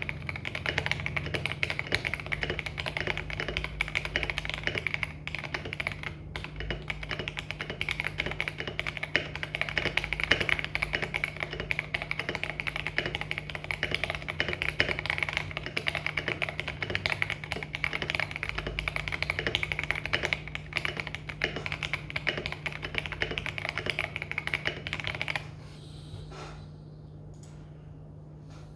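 Fast, continuous typing on an Akko Mod001 mechanical keyboard fitted with jelly starfish switches: a dense run of keystroke clacks that stops about 25 seconds in, leaving only a few scattered key taps. A steady low hum runs underneath.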